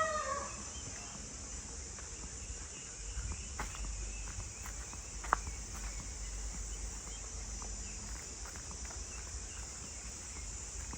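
Rural outdoor ambience: a rooster crows briefly at the very start, then scattered footstep clicks and scuffs on a trail over a steady high-pitched hiss and a low rumble.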